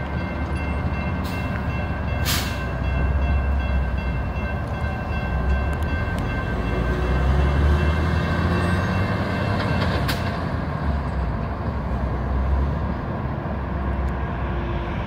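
Several electronic railroad crossing bells ringing together in a steady, overlapping ring, falling silent about nine seconds in, over a heavy low rumble. Two sharp clicks stand out, one about two seconds in and one about ten seconds in.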